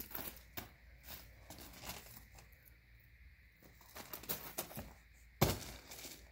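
Footsteps crunching on crushed-rock landscaping gravel, a scatter of short crunches, with one louder thump about five and a half seconds in.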